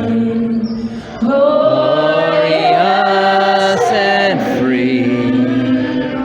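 Slow singing with long held notes, the voice gliding from one pitch to the next; it drops away briefly about a second in.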